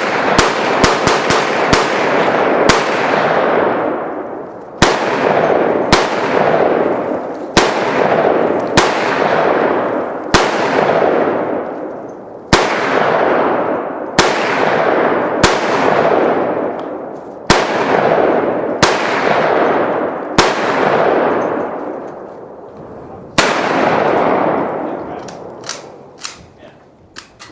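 Gunfire on a shooting range: about twenty loud shots at irregular intervals, mostly one to two seconds apart, with a quick run of shots at the start. Each report is followed by a long echoing rumble that dies away over a second or more. The firing stops shortly before the end, leaving only a few faint clicks.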